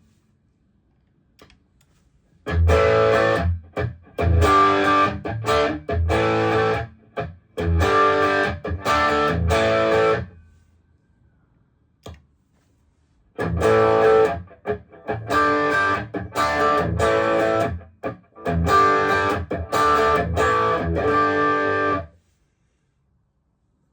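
Electric guitar played through a JHS Bonsai overdrive pedal, a Tube Screamer-style overdrive: chords strummed with a gritty, distorted tone. They come in two phrases of about eight seconds each, with short stops between chords and a pause of a few seconds between the phrases.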